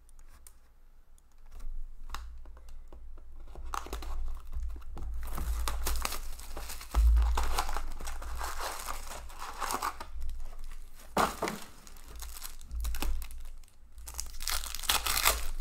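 Trading-card pack wrappers from a 2019-20 O-Pee-Chee Platinum hockey box being torn open and crinkled, in irregular bursts of crackling, over a steady low hum.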